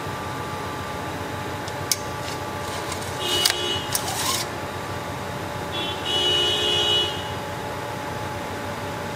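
Engine oil dipstick being drawn out of and slid back into its tube: two short scraping squeals, about three seconds in and again around six seconds, after a single click. A steady background hum with a few fixed tones runs underneath.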